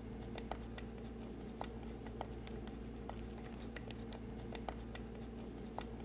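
Scattered small clicks and light taps of hands handling a generator's air intake hose and its hose clamps, over a steady low hum.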